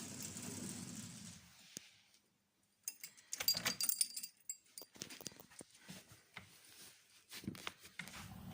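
A cat's noisy cry for the first second and a half, then a loud metallic jangle with clicks, like keys or a latch, about three seconds in. Scattered clicks follow, and a similar cry comes near the end.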